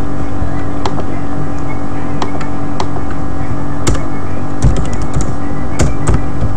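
Computer keyboard keys tapped at an irregular pace, then mouse clicks, over a loud, steady background hum.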